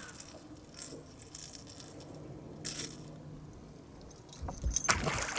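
Light jingling and clinking of small hard objects, with a louder cluster of knocks about a second before the end.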